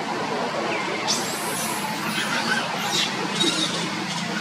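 Short high-pitched macaque squeals, several of them from about a second in, over a steady background noise.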